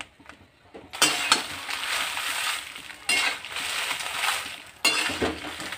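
Dried red chillies being stirred with a spatula in a hot pan with a little oil: sizzling and rustling with clinks of the spatula on the pan. The stirring comes in three strokes, starting about a second in.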